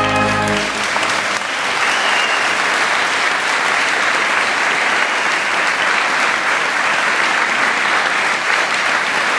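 A choir's final held chord cuts off less than a second in, and the audience breaks into steady applause.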